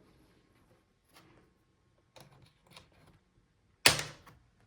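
Plastic bottom case of a Dell Inspiron 16 7610 laptop being pried off with a plastic pry tool: a few faint clicks and scrapes, then one sharp, loud snap about four seconds in as a case clip releases.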